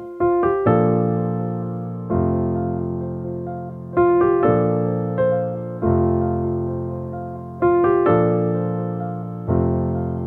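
Solo piano music: slow chords struck about every two seconds, each left to ring and fade, with a few quick notes leading into some of them.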